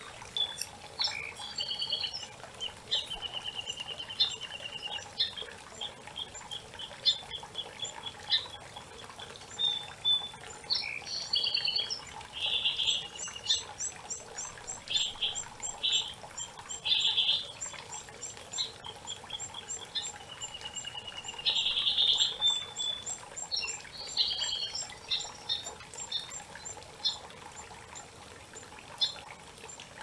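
Songbirds singing and calling over the steady rush of a creek. There are quick trills and runs of rapid high repeated notes, with the bird calls the loudest sounds.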